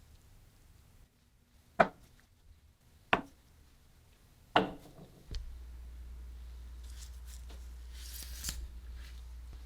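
Three sharp knocks about a second and a half apart, then a low steady hum starts with a few faint scraping hisses over it.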